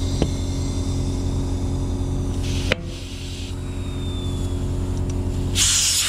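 Air compressor running steadily and hissing air through a gauge-chuck into a tubeless Maxxis Shorty mountain-bike tyre. A sharp snap comes about three seconds in as the tyre bead pops onto the rim.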